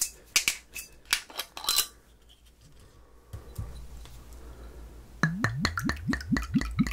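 Screw cap of a glass soju bottle twisted open with a handful of sharp clicks as the seal breaks. About five seconds in, soju glugs from the bottle neck into a shot glass as a quick run of gurgles, each rising in pitch.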